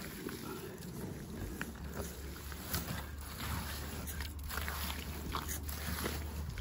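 Hands squelching and kneading wet clay mud mixed with straw in a wheelbarrow: irregular wet slaps, squishes and sloshes, over a low steady hum.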